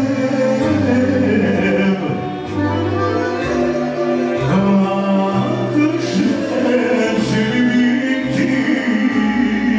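A man singing through a microphone over a live accordion and band: amplified Serbian folk music, with held notes over a moving bass line.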